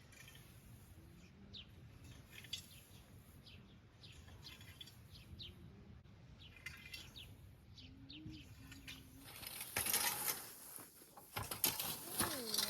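Small birds chirping in short, quick, falling calls over a quiet background. About ten seconds in, a much louder, fuller noise comes in and runs to the end.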